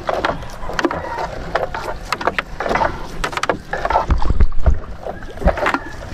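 Fishing net being hauled by hand over the side of a small wooden outrigger boat: water splashing and dripping off the net, with repeated knocks against the wooden hull and a few louder thumps about four seconds in.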